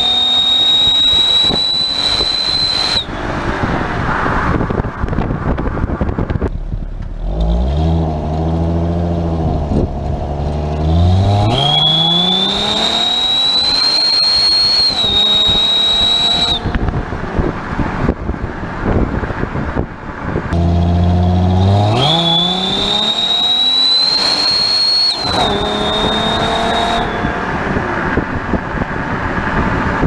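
Car exhaust fitted with a Roar Maker aluminium turbo whistle simulator on the tailpipe, driving under acceleration. A high whistle rises slightly in pitch as the engine pulls and cuts off abruptly when the throttle lifts, three times. Between whistles the engine note climbs with the revs over road noise.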